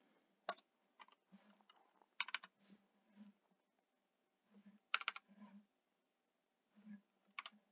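Faint keystrokes on a computer keyboard, a few scattered taps in small groups with pauses between, as a number is typed in.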